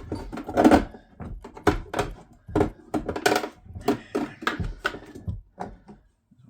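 Hand tools being picked through and handled: a run of irregular clatters and knocks, a few a second, the loudest about a second in, dying away near the end.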